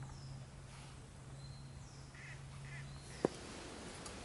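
Woodland ambience: short, high, falling bird calls repeat about once a second, with two short lower calls a little after two seconds in. A steady low hum underneath stops with a single sharp click about three seconds in.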